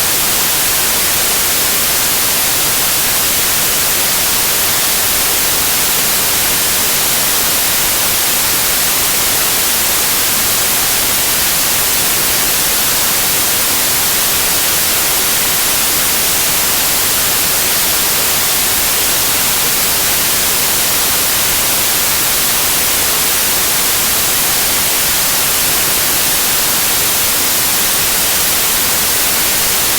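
Steady TV-static white noise: an even, unbroken hiss that is strongest in the highs.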